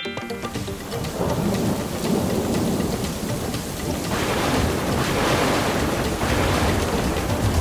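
Thunderstorm sound effect: thunder rumbling under falling rain, the rain hiss growing stronger about four seconds in.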